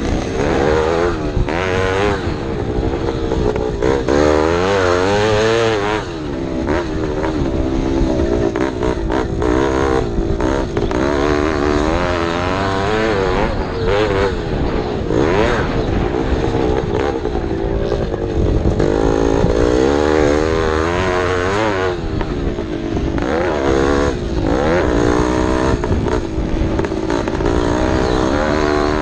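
Vintage racing motorcycle engine running hard, its pitch rising and falling again and again as the throttle opens and closes, over a low rumble.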